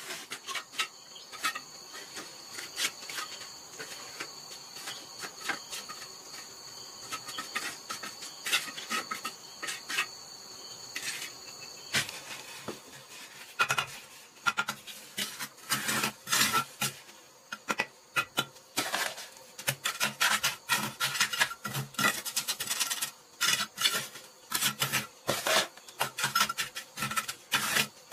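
Wet mortar being scraped and pressed into the joints of a freshly laid brick course, with irregular scraping and small knocks. For the first half an insect drones steadily at two high pitches, then stops about twelve seconds in, leaving the scraping to fill the rest.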